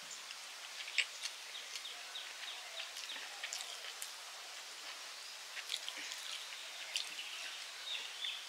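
Eating by hand: soft chewing and sharp lip-smack clicks, with fingers working rice on a metal plate, over a steady outdoor hiss.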